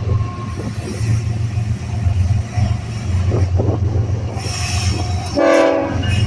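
Train rolling by with a continuous low rumble. About five and a half seconds in comes a brief pitched sound lasting about half a second.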